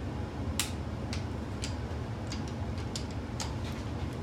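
Ratchet of a torque wrench clicking as it is swung to tighten a cylinder head bolt on an LQ4 6.0 V8, on the 50 ft-lb pass. About a dozen sharp clicks come unevenly, roughly two or three a second.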